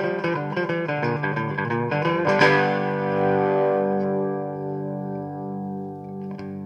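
Background guitar music: quick picked notes, then a chord struck about two and a half seconds in that rings on and slowly fades.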